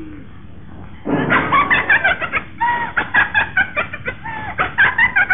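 Rapid hen-like clucking, loud short calls several times a second, starting about a second in.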